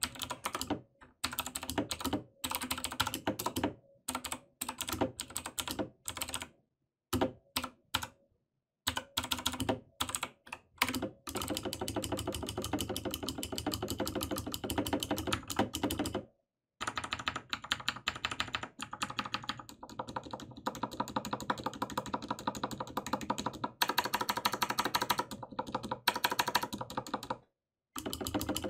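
Typing on a lubricated mechanical keyboard: key clicks in short bursts with pauses, then fast, near-continuous typing with two brief breaks.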